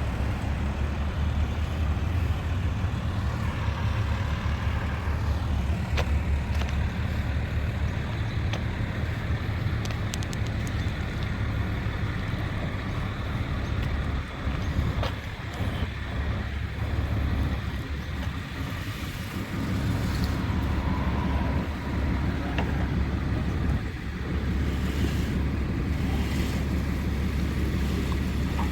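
Truck engine idling steadily, a low even rumble, with street noise and a few sharp clicks around it.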